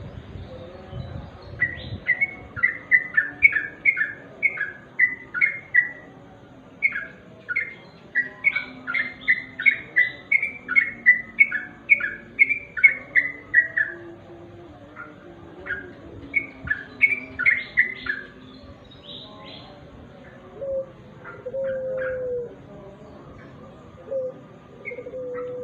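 Yellow-vented bulbul (trucukan) calling: a long series of short, falling chattering notes, about two a second, then after a brief pause a shorter run. A few lower notes follow near the end.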